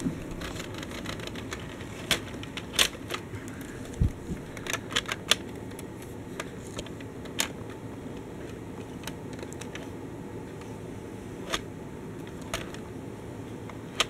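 Toy train on Lego wheels running along a plastic track: a steady motor hum with scattered sharp clicks and a low knock about four seconds in.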